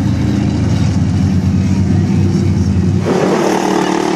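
Vehicle engines running, a steady low drone; about three seconds in it cuts abruptly to a different, higher-pitched engine sound.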